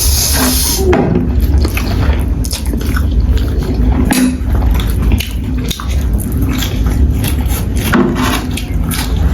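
Close-up mukbang eating sounds: spicy noodles being slurped and chewed, with many short wet smacks and clicks, over a steady low hum.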